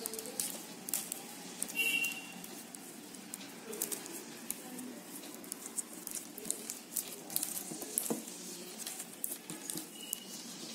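Flat plastic basket wire rustling and clicking as it is pulled through and tightened into a jasmine knot, with irregular small crackles and two brief high squeaks, one about two seconds in and one near the end.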